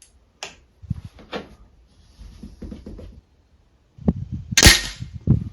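Anschütz 9015 HP air rifle, a sub-12 ft-lb single-shot PCP fitted with an air stripper, firing one shot with a sharp crack about four and a half seconds in. A few light handling clicks come before it.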